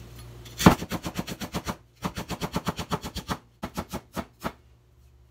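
Kitchen knife slicing white spring onion on a cutting board: a quick, even run of chops, about eight a second, with two short breaks, thinning out and stopping shortly before the end.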